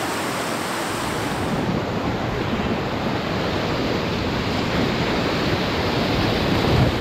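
Whitewater rapids rushing, a steady, even noise of churning water. About two seconds in the sound turns heavier and closer, picked up on board the canoe as it runs through the frothing waves.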